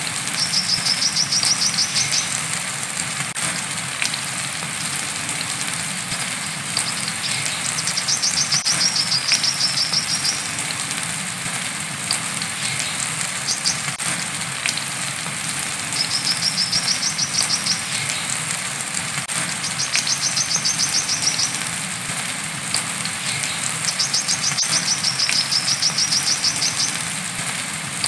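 Brown-throated sunbird singing its wiceh song: a run of rapid high trills, each one to three seconds long, repeated several times over steady rain.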